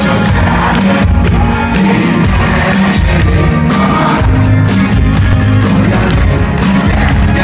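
Rock band playing loudly live, with drum kit, bass and electric guitars keeping a steady beat and a voice singing over them.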